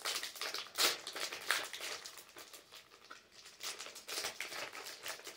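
Plastic wrapping on a package of Peeps marshmallows crinkling and crackling as it is pulled open by hand, in irregular bursts, the loudest about a second in.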